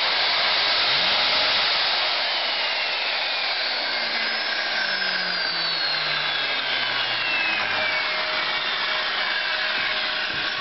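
Electric angle grinder running steadily with no load, with a strong even whirr and faint whining tones that slowly fall in pitch; it stops near the end. It is being test-run after a repair of a bent and broken wire inside it.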